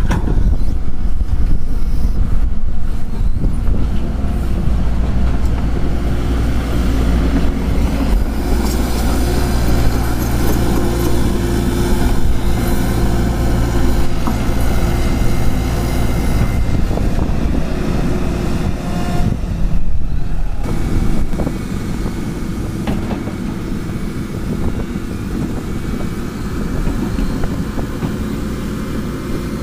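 Tata Hitachi Zaxis 140H crawler excavator's diesel engine running hard under hydraulic load as it digs soil and swings to load a tipper truck, with scattered knocks of earth and stones. The engine settles to a lower, quieter note about two-thirds of the way through.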